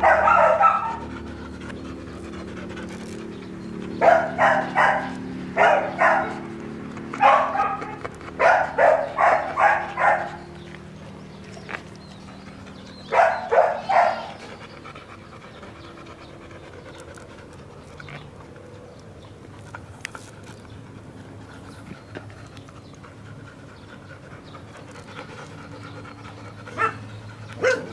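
Flat-coated retriever puppy panting in several short bouts of quick, rapid breaths, with quieter pauses between the bouts.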